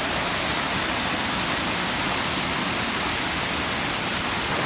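Waterfall rushing: a steady, loud roar of falling water that does not change.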